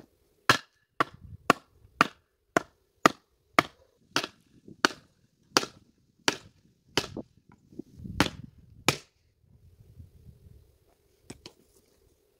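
A tool striking wood in a steady series of sharp blows, about two a second, some sixteen in all, stopping about nine seconds in, with two faint knocks near the end.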